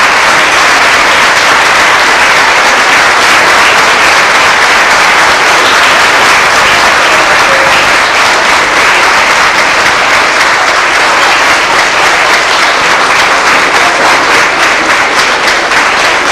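Audience applauding steadily and loudly, a dense continuous clapping with individual claps standing out more toward the end.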